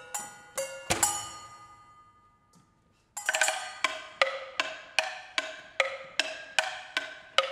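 Kitchenware played as percussion instruments: pots and bowls struck in a steady beat, each stroke ringing with several pitched overtones. A louder stroke about a second in rings away into a short near-silent pause, and the beat starts again about three seconds in.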